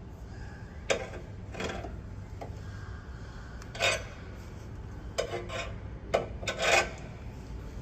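Car tire-changing hand tools working metal on metal, in short irregular rasping scrapes, about six in all, the loudest near the end.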